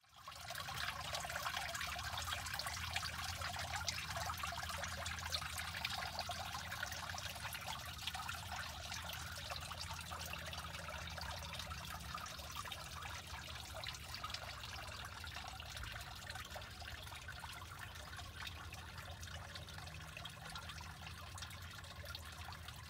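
Water trickling and splashing over stones in a small garden rock fountain, a steady bubbling flow with a low hum underneath.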